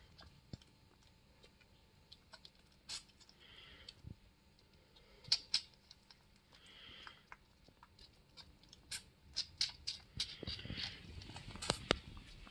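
Young bushbuck drinking: a run of small wet clicks and smacks at an uneven pace, broken by a few longer sucking stretches, and busiest near the end.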